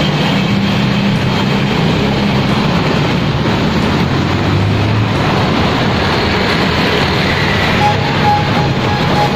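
Street traffic: motorbike and car engines running steadily as they pass.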